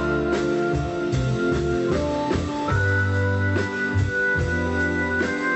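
Instrumental background music with held notes over a bass line and a steady beat.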